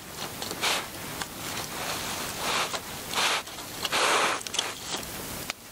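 Wood fire crackling, with sharp pops and several short surges of hissing as the burning logs flare.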